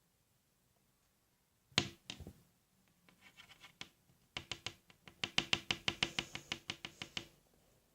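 Hands handling a small foam squishy toy close to the microphone: one knock about two seconds in, then a quick run of light taps, about six a second, that stops near the end.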